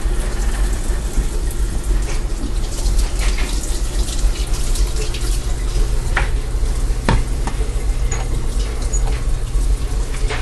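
Kitchen tap running into a sink as hands are rinsed, a steady rush of water with a couple of sharp knocks about two-thirds of the way through.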